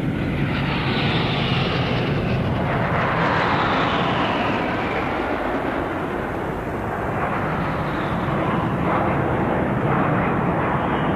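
Jet engines of a formation of military aircraft flying over, a steady loud rushing noise with pitch sweeps that fall as the aircraft pass.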